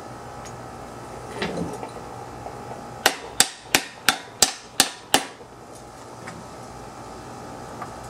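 Hammer blows on metal tools against a Briggs & Stratton lawn mower engine, knocking the crankcase cover loose from the block: a light scraping clunk about a second and a half in, then seven sharp, ringing strikes at about three a second.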